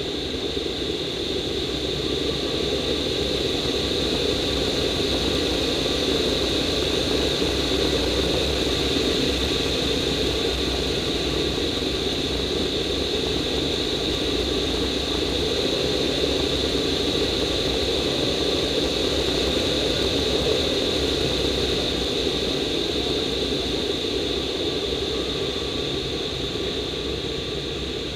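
Air rushing over a glider's canopy during aerobatic manoeuvres, a steady rush that swells a little as the speed builds and eases off again near the end.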